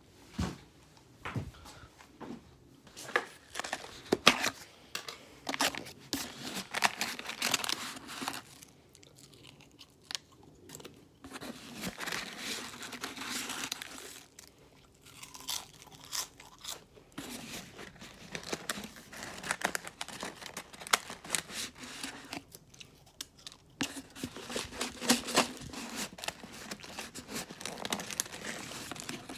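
Irregular rustling and crunching close to the microphone, with scattered sharp clicks and knocks, from handling and movement near the phone, with short quieter gaps between bouts.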